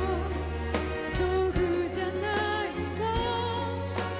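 A woman singing into a microphone over live band accompaniment, with a sustained low bass and sharp drum hits.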